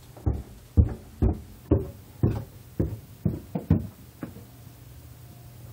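A series of about ten knocks, roughly two a second, the last few coming quicker and fading; after them a steady low hum carries on.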